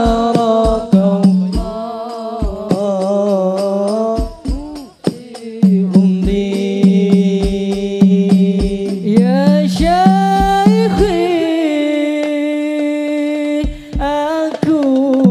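Sholawat hadrah group: male voices singing a drawn-out, ornamented devotional melody together over a steady pattern of hand-drum strokes.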